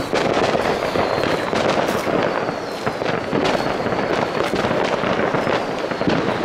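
Many New Year's fireworks going off at once: a dense, continuous crackle of bangs, with a few high whistles gliding down in pitch.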